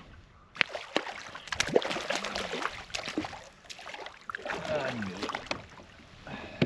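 A run of knocks, clicks and rattles from handling gear on a fishing kayak, with two low sounds sliding down in pitch about two and five seconds in.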